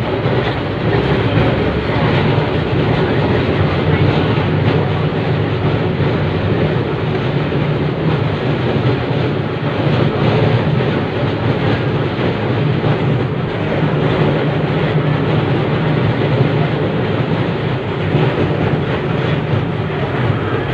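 Sydney C-class single-truck tram running along the track, heard from inside its wooden saloon: a steady rumble of wheels on rail with continual rattling and clicking.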